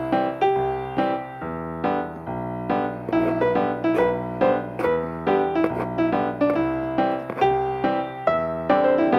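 Background piano music: a light tune of evenly paced struck notes over held bass notes.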